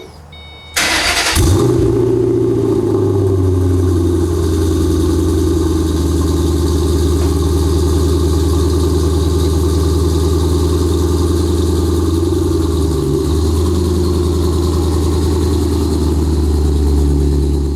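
2005 Mustang GT's 4.6-litre V8 starting up through a Borla Stinger axle-back exhaust with an off-road X-pipe: it catches about a second in and settles into a steady idle.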